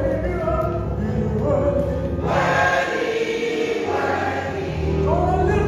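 Gospel choir singing with keyboard accompaniment, swelling louder and brighter for a stretch in the middle.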